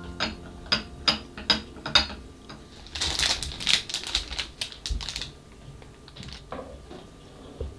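A quick run of light clicks and taps as small glass cups are handled, then a plastic zip bag crinkling loudly for about two seconds.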